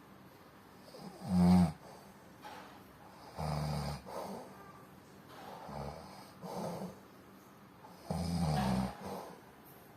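A sleeping person snoring: about six irregular, low snores in ten seconds, the loudest about a second and a half in.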